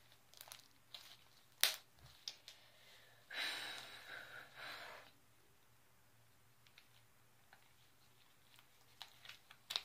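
Faint, sparse sticky clicks and small pops of hand-stretched slime as it is pulled apart and pulled upward, with a soft rushing noise lasting about a second and a half near the middle.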